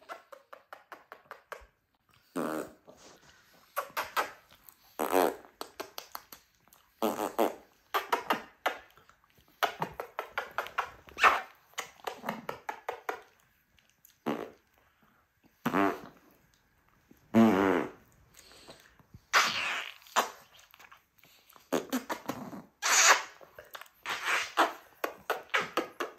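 A dog making a long string of short grunting, whining vocalizations, some with a wavering pitch.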